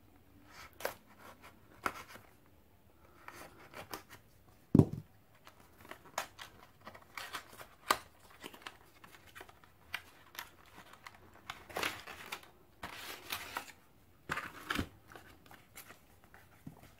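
Cardboard packaging being opened by hand: a small knife slitting the box's seal, then cardboard and paper scraping, rustling and tapping as the box is opened and the inner tray slid out, with one louder thump about five seconds in.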